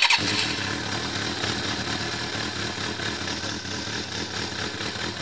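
Motorbike engine catching on the electric starter and then idling steadily, loudest for a moment at the start as it fires up.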